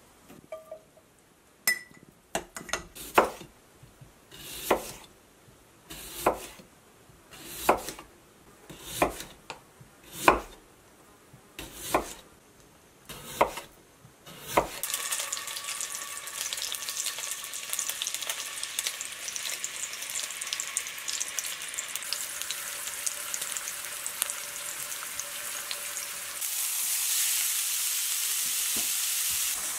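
A knife chops through potatoes onto a wooden cutting board: about ten sharp knocks, roughly one every second and a half. About halfway through, a steady sizzle of food frying in a cast-iron skillet takes over. It grows louder near the end as a moose-burger patty is laid into the hot pan.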